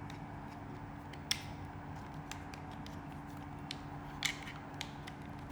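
Small clicks and ticks of plastic items being handled during an unboxing, with two louder clicks, about a second in and again about four seconds in, over a steady low hum.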